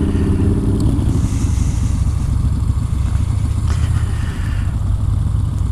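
Yamaha Bolt XV950R motorcycle's air-cooled V-twin engine running steadily under way.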